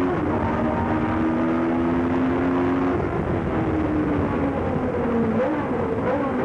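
Formula 1 racing car engine running hard at high revs, heard from the car. Its note holds high and steady, dipping a little a few times and climbing again in between.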